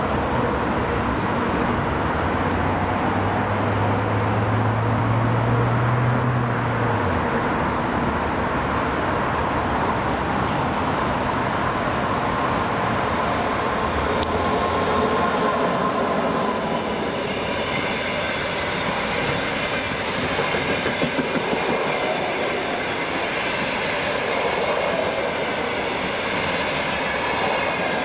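EP20 dual-system electric locomotive and its passenger train approaching and running past at speed. Once the locomotive has passed, the coaches roll by with a rhythmic clatter of wheels over the rail joints.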